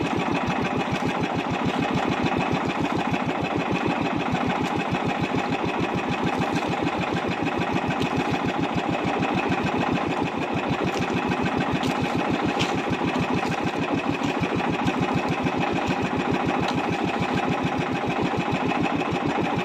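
Small engine of a motorized outrigger fishing boat running steadily, with a fast, even chugging.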